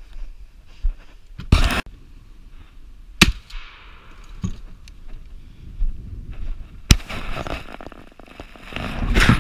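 Two sharp shotgun blasts about three and a half seconds apart, the shots of a squirrel hunt. A heavy thump comes about a second and a half in, and rustling and handling noise follow the second shot.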